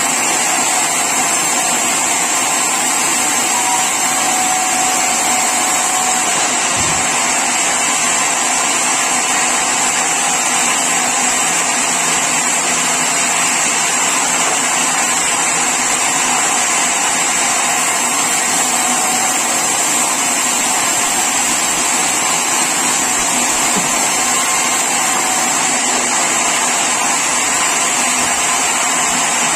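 Sawmill saw machinery running steadily, a loud, constant noise with a high-pitched hiss over it and no pauses or changes.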